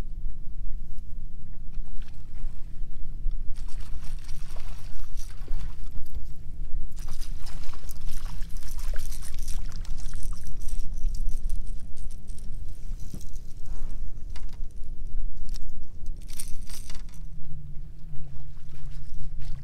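Open-water ambience around a bass boat: a steady low rumble with splashy, clinking noise through the middle, and a steady low hum that comes in near the end.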